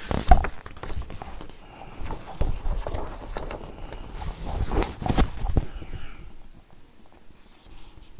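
Pages of a large glossy softcover book being turned and handled: paper rustling with knocks and thumps. The loudest are near the start and around five seconds in, and it is quieter over the last two seconds.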